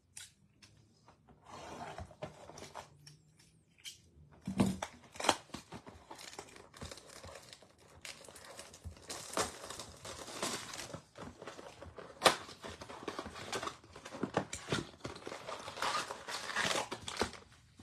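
Plastic shrink wrap crinkling and tearing as it is stripped off a cardboard trading-card box, in irregular crackles that grow busier after about four seconds, with the box's cardboard flap pulled open near the end.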